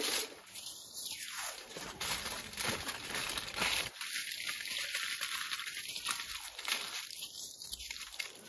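Irregular rustling and crinkling, a dense run of small crackles, as of something being handled.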